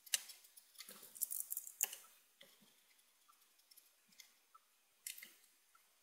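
Faint, irregular small clicks and taps, bunched together in the first two seconds, a few scattered ticks after, and one more short group about five seconds in.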